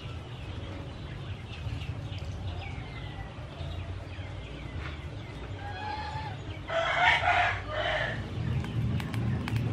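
A rooster crowing once, about seven seconds in, with faint chirps of small birds and a few light knife taps on a wooden cutting board.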